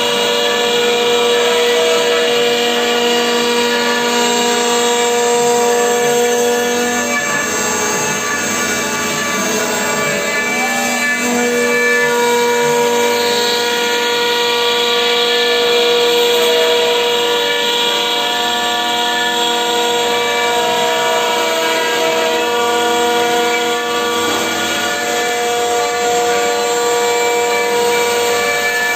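CNC router spindle cutting through an MDF sheet: a steady, high-pitched whine with a hiss of cutting noise. The pitch shifts slightly a few seconds in as the cut goes on.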